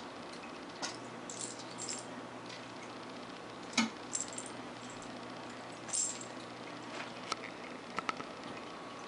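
Steady hum and hiss of a running aquarium filter, with scattered sharp clicks and light clinks. The loudest click comes a little under four seconds in, and a quick cluster of clicks comes near the end.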